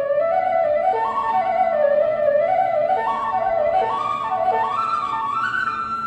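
Background music: a flute melody winding up and down with quick ornamented turns, climbing to a held higher note near the end.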